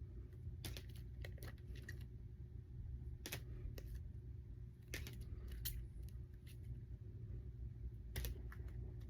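Rigid plastic card top loaders clicking and tapping against one another as they are handled and counted one by one: a dozen or so irregular sharp clicks over a low steady hum.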